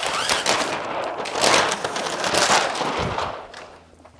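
Backing liner being peeled off a large sheet of STEK DYNOchrome matte black paint protection film: a rapid crackling, ripping sound as the adhesive lets go, dying away about three and a half seconds in.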